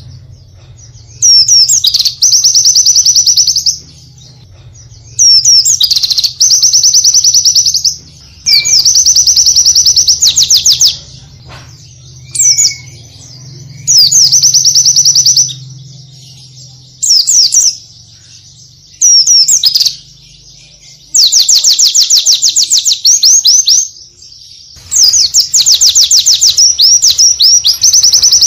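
White-eye (pleci) singing in fast, high, trilling bursts of one to three seconds, about nine times, with short pauses between.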